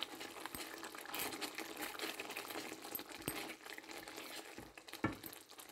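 Thick curry gravy simmering in a pan, popping and bubbling in many small clicks, while a wooden spatula stirs it and now and then knocks against the pan.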